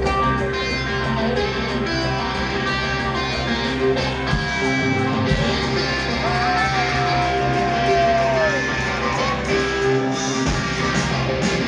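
Rock trio playing live through a festival PA: electric guitars over drums and cymbals. One long held note from about six seconds in slides down at its end.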